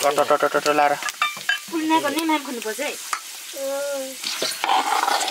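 Ground spice paste frying and sizzling in oil in an iron kadhai, stirred with a steel ladle, with loud pitched vocal sounds over the top.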